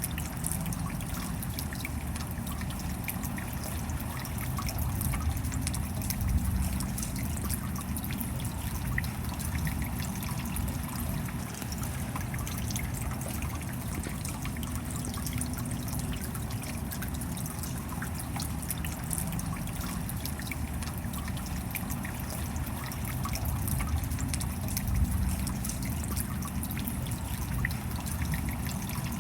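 Steady rain falling, with a dense scatter of small drop ticks over a continuous wash of noise; it swells slightly a couple of times.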